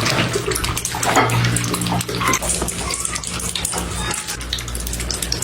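Several cats lapping milk: a dense, continuous run of small wet lapping and slurping clicks.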